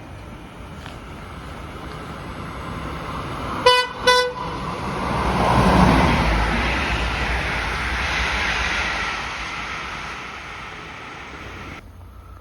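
Train horn giving two short toots about half a second apart, then the train passing, its noise swelling and fading before it cuts off abruptly near the end.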